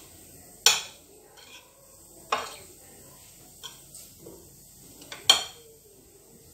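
Metal spoon clinking against a ceramic serving bowl while scooping boiled vegetables: three sharp clinks with a short ring, the last about five seconds in, and a few lighter taps between.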